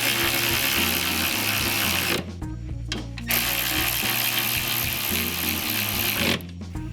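Ratchet spinning new suspension bolts home through fresh polyurethane bushes, in two runs of about two and three seconds with a short pause between. Background music plays underneath.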